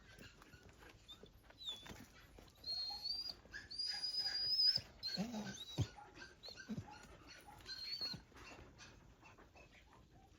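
Dog whining: several high, thin, drawn-out whines, the longest about a second, with a couple of short lower yelps among them.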